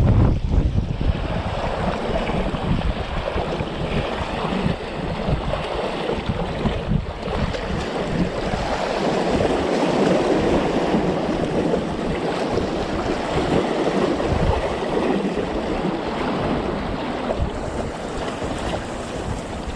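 Wind-driven waves washing steadily against the shore, with strong wind buffeting the microphone in uneven low rumbles.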